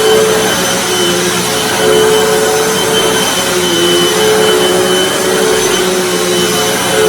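Hoover WindTunnel T Series bagged upright vacuum cleaner running steadily and loud, its motor hum drifting slightly in pitch.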